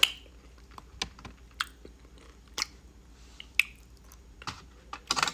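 Close-miked mouth sounds of eating apple pie with ice cream: wet chewing and lip smacks, with short clicks about once a second and a quick cluster near the end.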